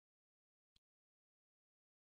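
Near silence: a pause in the recording with no sound.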